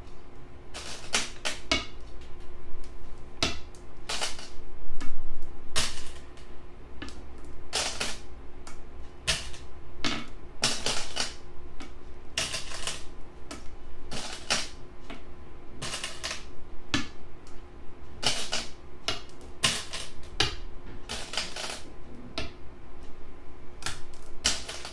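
Go stones clacking down on a board, about thirty sharp clicks at an uneven pace, some in quick pairs, as moves are played through. A faint steady hum lies underneath.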